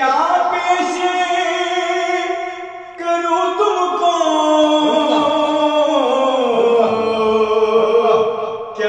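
A man's solo voice singing a devotional Urdu song in two long, drawn-out phrases, the second starting about three seconds in, with no instruments.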